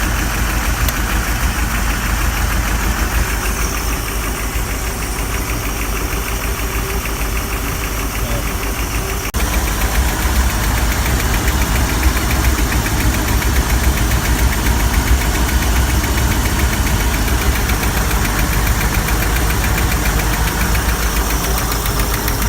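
Inboard V8 marine engine running at idle with a rapid, steady ticking tap: a loud valve tap on one cylinder bank, which the owner hopes is only valve lash and not a bent valve stem or a stuck valve. About nine seconds in the sound breaks and comes back a little louder.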